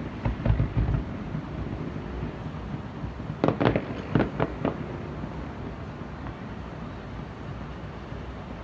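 Fireworks going off: low booms in the first second, then a quick cluster of about six sharp cracks a few seconds in, over a steady low background rumble.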